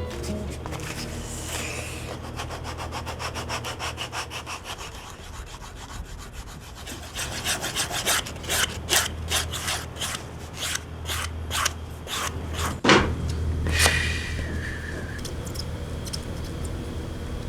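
Rhythmic rubbing strokes of a hand tool worked over a hiking boot, faint and quick at first, then louder and slower, with one sharp knock near two-thirds through, over a steady low hum.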